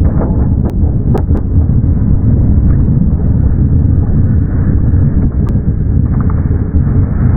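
DE10 diesel-hydraulic locomotive running under load as it hauls a dead EF65 electric locomotive, a steady heavy rumble, with a few sharp clicks in the first second and a half.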